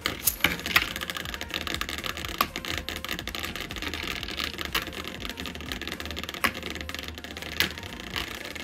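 Two Beyblade spinning tops, a homemade brick-built one and a metal L-Drago, set spinning in a plastic tray near the start, then spinning with a rapid clicking rattle against the tray floor and walls. There are a few louder knocks.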